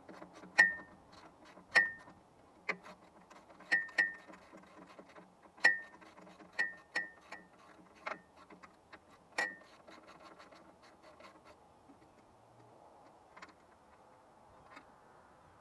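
Hand tools clinking on the steel parts of a sawmill's bearing assembly while it is taken apart: about a dozen sharp metal clicks, most with a short ring, over the first ten seconds, then only faint handling.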